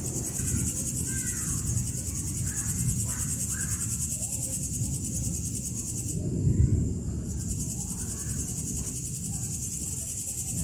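Crickets trilling in a steady, high-pitched night chorus over a low rumble. About six and a half seconds in, a louder low thump comes as the trill briefly cuts out.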